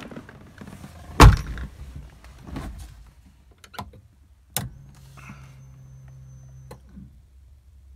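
Car door pulled shut with a loud thump about a second in, then sharp clicks of dash toggle switches and a steady hum for about two seconds that stops with a click: the Honda EK Civic's fuel pump priming as the ignition is switched on.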